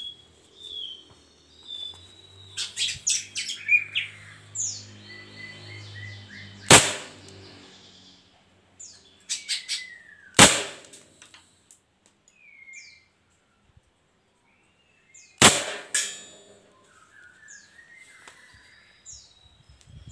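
Three sharp shots from a fully upgraded Glock 19 airsoft pistol firing 6 mm BBs, several seconds apart. Birds chirp in between.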